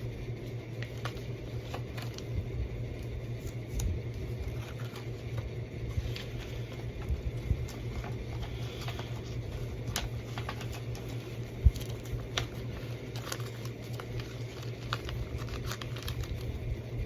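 Plastic Blu-ray case and its paper cover sheet being handled while the artwork is reversed: scattered light clicks and rustling, with one sharper click about twelve seconds in, over a steady low hum.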